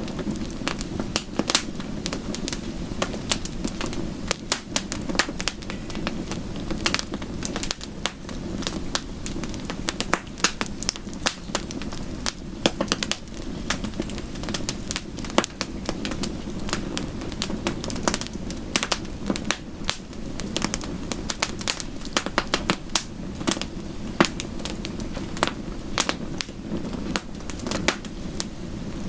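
Wood fire crackling, with frequent sharp irregular pops and snaps over a steady low rushing bed.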